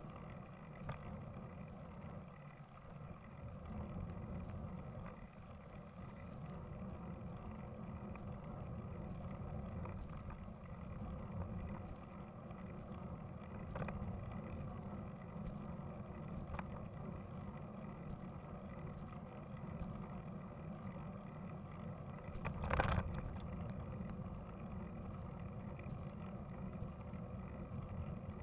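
Steady rumble of road and wind noise from a moving ride, with one short, loud knock near the end.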